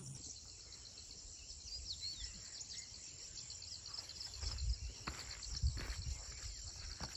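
Insects, crickets among them, trilling steadily in the grass, a fast high pulsing chorus. A couple of brief high chirps come about two seconds in, and a few low thumps about halfway through.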